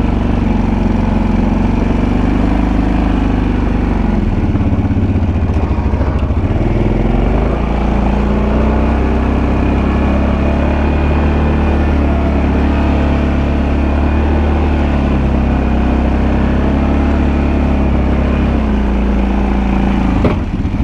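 Kawasaki Brute Force 750 ATV's V-twin engine, newly rebuilt, running as the quad drives and plows snow. The engine pitch rises and falls with the throttle.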